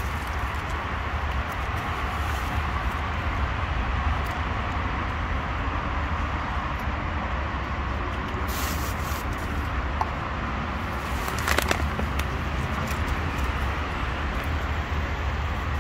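Steady outdoor background noise with a low rumble, with a few brief clicks a little past the middle.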